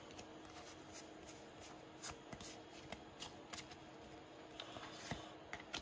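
Pokémon trading cards being flicked through one by one in the hands: a faint, irregular run of soft ticks and slides as card edges pass over each other.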